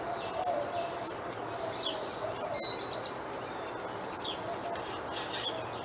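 Birds chirping: a run of short, high chirps that slide downward, one or two a second.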